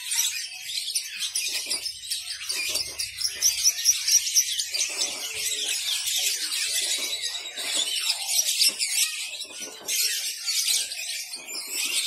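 Many small caged birds chirping densely, among them a cage of zebra finches: short, high calls overlapping continuously with no pause.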